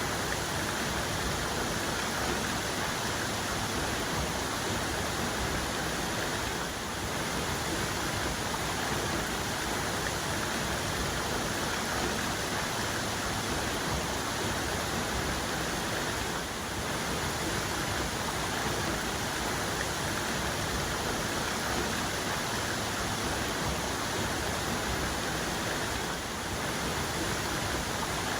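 Waterfall's main cascade: a steady rush of falling water, even and unbroken.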